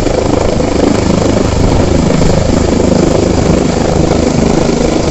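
Sécurité Civile EC145 rescue helicopter hovering low over the water, its rotor and turbines running steadily and loudly.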